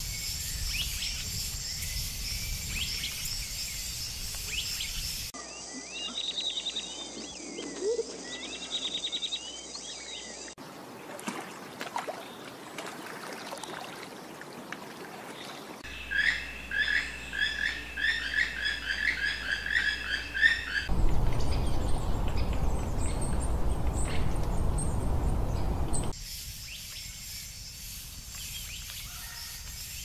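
Tropical forest ambience made of short cut-together segments that change abruptly every five seconds or so. It holds a high steady insect chorus, bursts of repeated bird chirps and calls, and a stretch of steady rushing noise a little past the middle.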